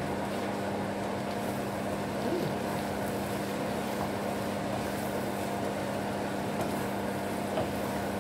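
Kway teow noodles, bean sprouts and greens being stir-fried in a hot nonstick pan: a sizzle with the occasional scrape and tap of a wooden spatula, over a steady motor hum.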